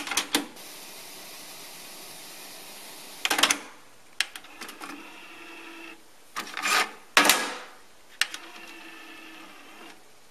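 Mechanical clicks and clunks from a Technics RS-TR170 double cassette deck as its transport keys are worked and the Deck 2 cassette door is opened and shut: about six separate clusters of sharp clicks, some with a short whirr, with a faint steady hiss between them.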